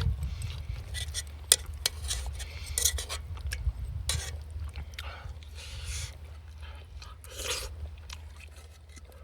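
A person eating: scattered light clicks of utensils against a dish, with chewing, over a steady low rumble.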